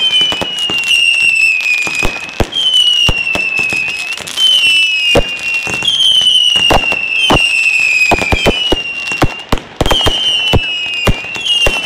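Fireworks going off in quick succession: a run of overlapping high whistles, each sliding slowly down in pitch for a second or two, amid many sharp cracks and bangs.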